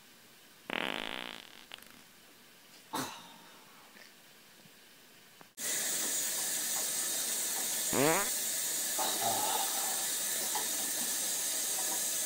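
A short fart about a second in, with a second brief sound near three seconds. Then a kitchen faucet runs steadily into a sink, with a brief falling sound near eight seconds.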